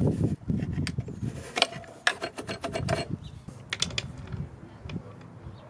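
Hand ratchet wrench clicking as it works a bolt: a quick run of sharp clicks around the middle, with duller knocks of tools and metal parts being handled.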